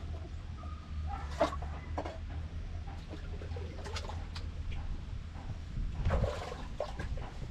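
Water sloshing and gurgling, with scattered knocks and scrapes from digging rubble out of the bottom of a hand-dug well. A steady low hum runs underneath, and the activity is busiest about six seconds in.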